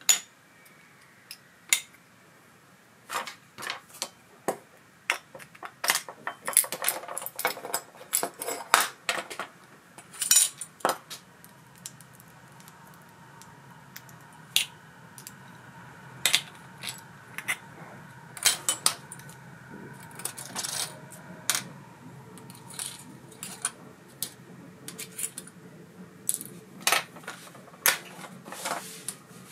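Small metal parts of an ABU Ambassadeur 4600 CA baitcasting reel clicking and clinking as the reel is taken apart: many sharp, irregular taps and clinks, some in quick clusters.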